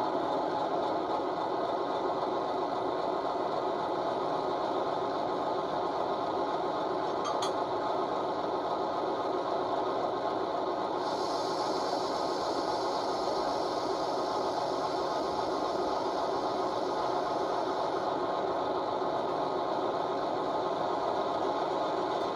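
The DCC sound decoder in a model Class 58 diesel locomotive plays the loco's engine-room sounds through its small speakers: a steady mechanical clatter. A hiss joins it for several seconds about halfway through.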